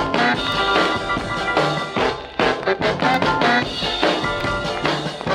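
Instrumental break in an early-1960s rock and roll dance song, the band playing on with a steady beat between sung verses.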